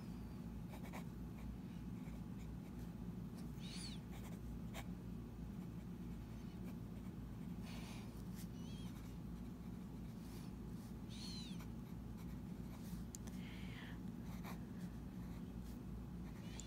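Medium steel nib of a Jinhao 159 fountain pen scratching across lined paper in short, separate strokes as words are written, some strokes with a brief high squeak. A steady low hum sits underneath.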